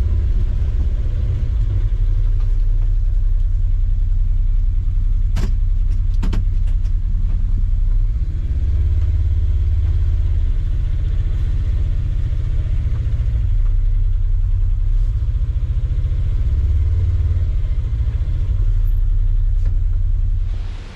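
Champion inverter generators, paralleled, running with a loud, steady low engine hum that swells twice as the engine speed picks up. Two sharp clicks come a little past a quarter of the way in, and the sound cuts off suddenly near the end.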